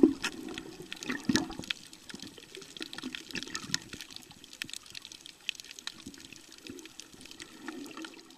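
Underwater sound picked up by a camera on a snorkeling dive over a coral reef: muffled sloshing water with many scattered sharp clicks and crackles. The loudest surge comes right at the start, then it settles to a lower, uneven wash.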